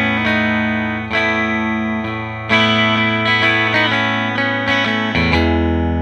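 Tele-style electric guitar on its Artec Alnico 5 big-pole bridge single-coil pickup, volume full, playing ringing chords: fresh chords struck about one and two and a half seconds in, lighter picked notes after, and a chord change near the end.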